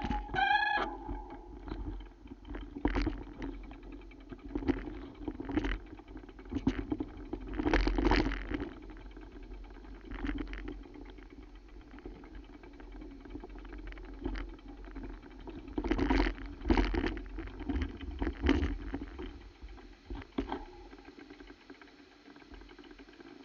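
Bicycle riding over rough, muddy ground: irregular knocks and rattles, heaviest about eight and sixteen seconds in, over a steady low rumble.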